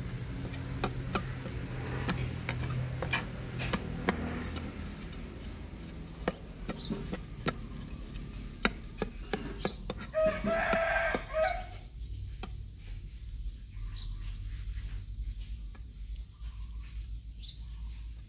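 Chef's knife scraping scales off a fish on a round wooden chopping block: a run of quick scrapes and taps of the blade. A rooster crows once, about ten seconds in.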